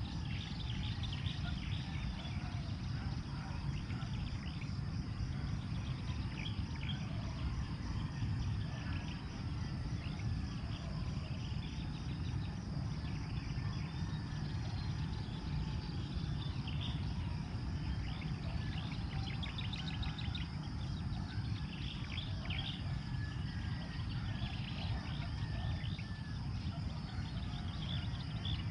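Open-field ambience: birds chirping on and off over a continuous high insect trill and a steady low rumble.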